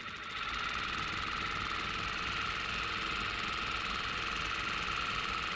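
Merrow MG-2DNR-1 industrial rolled-hem machine running steadily with an even whine, stitching a rolled hem along a fabric edge.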